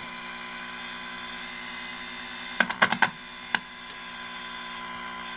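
Steady electrical hum and hiss from the tube TV chassis and test setup, with a quick run of sharp clicks about halfway through as the test probe is set onto the circuit at the sound detector diode.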